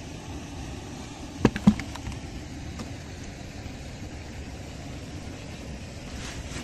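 Steady low hum like a running motor, with a quick run of three or four sharp knocks about a second and a half in.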